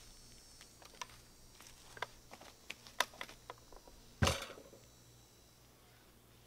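Scattered light wooden knocks and clicks, then one heavy thud about four seconds in as a large 8x8 timber beam is shifted and its end set down on its wooden supports.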